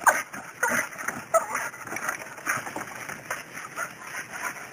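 A dog hanging from a tree branch by its teeth and tugging at it: short irregular growls and grunts mixed with rustling of the branch and dry leaves, loudest in the first second and a half.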